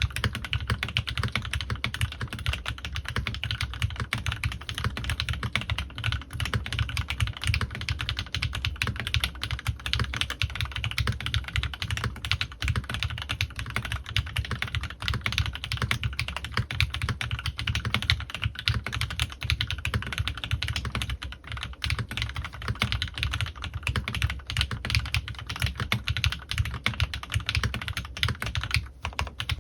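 Fast, continuous typing on a custom mechanical keyboard with lubed Gateron Ink Black V2 linear switches and PBT keycaps, a steady stream of key clacks.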